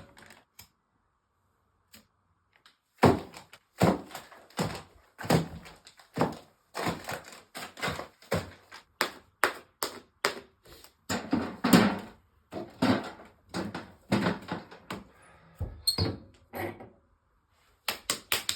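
Irregular knocks and thunks of a fireplace being cleared of ash and nails and a fire being laid, about one or two a second, starting after a couple of near-silent seconds.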